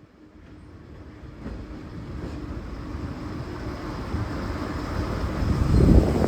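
V/Line Sprinter diesel railcars approaching and passing close by, their engine and wheel noise growing steadily louder and loudest near the end.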